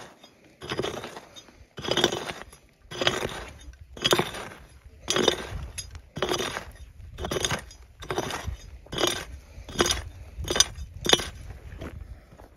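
A digging pick striking stony, gravelly ground over and over, about once a second, each blow a sharp clinking hit with a short scrape of loose stones, as the hole is dug down to a metal-detector signal.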